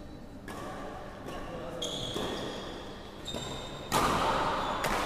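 Badminton rally: rackets striking the shuttlecock in a series of sharp smacks about once a second, each ringing in the large hall, the loudest about four seconds in.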